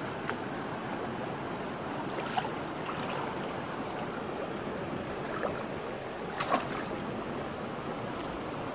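Steady rush of a shallow stream, with a few small splashes and knocks as hands grope along the bottom in the shallows for snails. The loudest splash comes about two-thirds of the way through.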